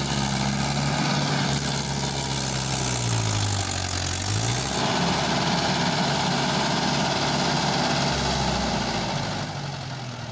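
Mahindra 555 tractor's diesel engine working hard as it hauls out of a flooded, muddy paddy field. Its pitch sags about three seconds in as it lugs under the load, then picks up again, turning harsher and noisier from about five seconds in. It fades toward the end.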